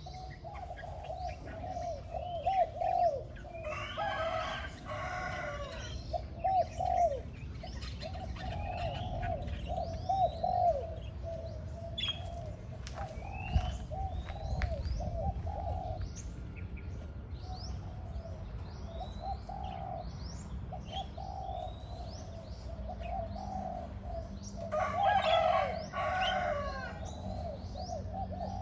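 Spotted dove cooing over and over in low, rolling phrases, with small birds chirping high and quick in the background. Twice, about four seconds in and again near the end, there is a louder, harsher burst over the cooing.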